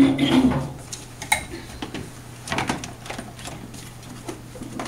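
Exam-table paper being pulled off and handled, then a container taken from a cabinet: scattered rustles and clicks over a steady low hum.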